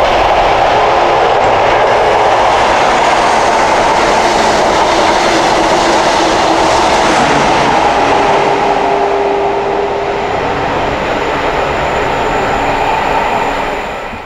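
A Class 43 HST (High Speed Train) with a diesel power car at each end runs past: a steady diesel engine drone with the rumble of the wheels on the rails. A steady tone comes in about eight seconds in, and the sound fades over the last few seconds as the train goes by.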